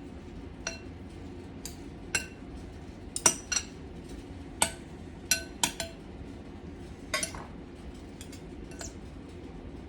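Utensils clinking against a bowl as a salad is tossed: about a dozen sharp, irregular clinks, each with a brief ring.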